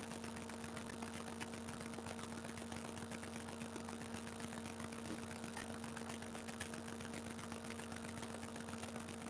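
Soft rustling and flicking of book pages being leafed through, faint against a steady electrical hum and hiss.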